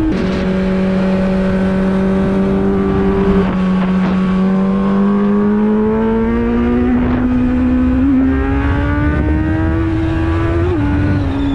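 Kawasaki Z900 inline-four engine running hard at speed, its pitch dropping sharply at the start and then climbing slowly and steadily, with a slight dip near the end. Constant wind rush underneath.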